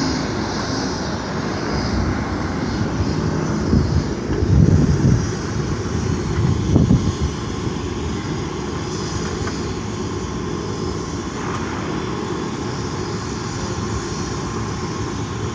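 Helicopter running at a heliport, a steady engine and rotor noise, with heavier low buffeting about four and seven seconds in, like rotor wash or wind on the microphone.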